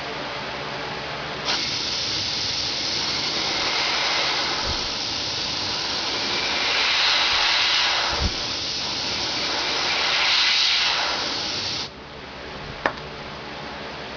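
Handheld compressed-air blow gun on a 100 psi air line, blowing a loud steady hiss of air. It starts abruptly about a second and a half in, swells and eases a few times, then cuts off sharply when the trigger is released.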